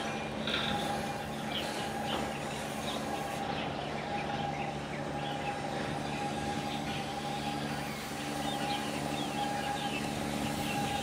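Steady drone of ship engines, carrying several held tones at once, with scattered short bird chirps over it.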